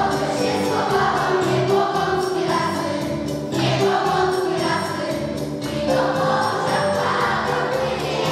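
Children's choir singing over a recorded backing track with a steady beat.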